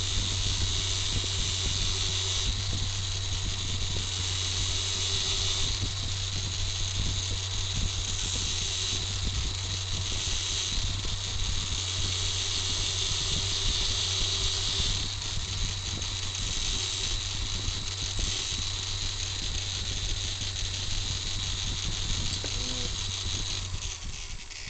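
An angle grinder mounted in a homemade grinding attachment runs steadily while grinding and cleaning a workpiece. There is a constant motor hum under a high, wavering screech of abrasive on metal, easing off just before the end.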